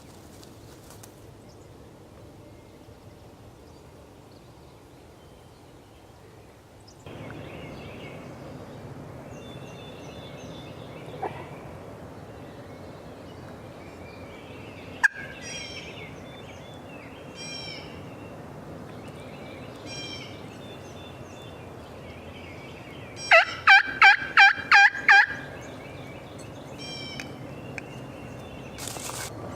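A series of about seven loud turkey yelps, three or four notes a second, with faint songbirds chirping in the background and a single sharp click about halfway through.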